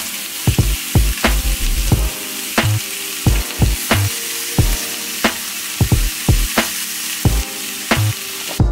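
Oxtails sizzling as they brown in hot oil in a cast-iron skillet, a steady dense frying hiss that cuts off suddenly near the end. A music beat with a low, regular kick runs underneath.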